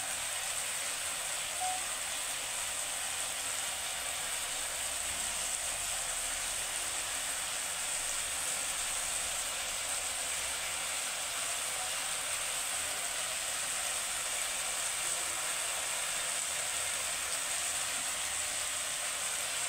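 Small fish and vegetable strips frying in oil in a wok, a steady, even sizzle.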